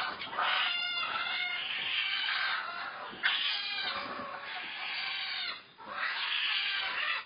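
A large flock of layer hens clucking and squawking together, a dense din of many overlapping calls, dipping briefly near the end.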